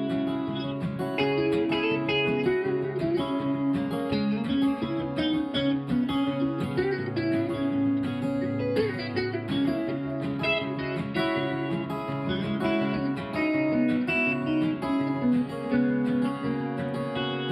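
Instrumental break in a song: acoustic guitar strumming, with picked guitar notes over it and no singing.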